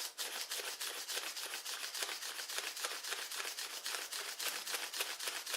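Paper wings of an origami flapping bird flapping as its tail is pulled repeatedly, a rapid, even papery rustling of several strokes a second.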